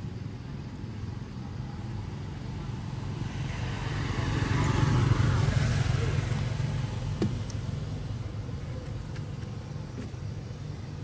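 A road vehicle passing by: engine and tyre noise swells about three seconds in, peaks, then fades, over a steady low rumble.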